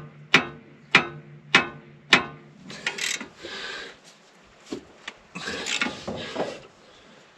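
Hammer striking the metal steering knuckle of a Toyota straight front axle, four ringing blows about half a second apart, knocking it into line so the bolts can be threaded in. After that come irregular scraping and rattling sounds of tools on metal.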